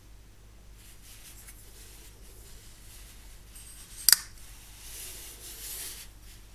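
Fallkniven PXL liner-lock folding knife being handled: faint rubbing, then a single sharp click about four seconds in, followed by a second or so of rubbing.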